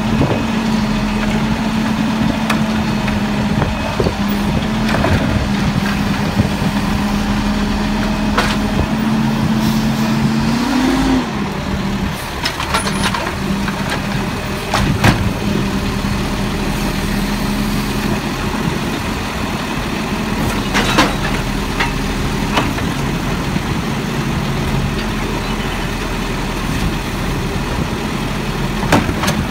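Mack MR automated side-loader garbage truck (Heil AutoReach arm) running at a steady pitch that rises briefly about eleven seconds in. Scattered knocks and clanks come from the automated arm as it grabs, lifts and dumps a recycling cart.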